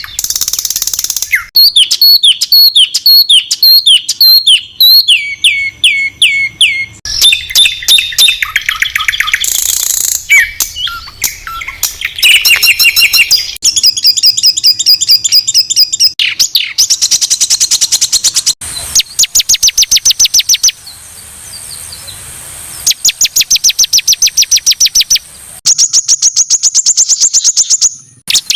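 Songbird singing loud, high-pitched, harsh phrases of the 'tembakan kasar' (harsh shot) type used to tutor competition birds: fast runs of sharp repeated notes and rapid trills that switch abruptly from one phrase to the next, with a short quieter pause a little after the middle.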